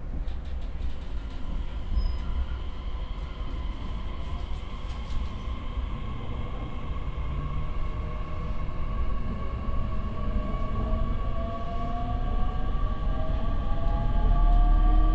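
JR East E501 series EMU pulling away under power, heard from inside the passenger car. Its Toshiba IGBT-VVVF inverter and traction motors give a steady electric whine, with fainter tones slowly rising in pitch as the train gathers speed. Wheel and track rumble grows louder toward the end.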